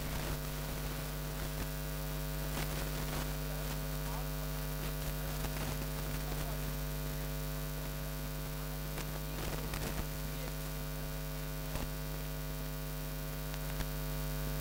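Steady electrical mains hum with a stack of overtones, unchanging throughout, with a few faint clicks.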